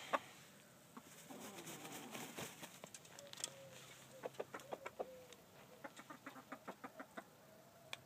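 Grey game rooster clucking faintly: a few short low calls, then a rapid run of short sharp clicks in the second half.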